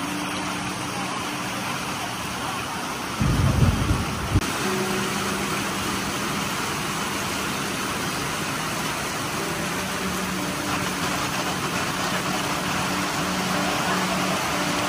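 Heavy tropical rain pouring onto paving and a shelter roof, a steady dense hiss, with the low hum of a vehicle engine idling underneath. About three seconds in a loud low rumble cuts in for a second or so.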